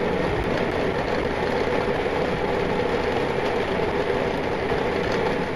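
Electric countertop grain mill running steadily, grinding grain into flour.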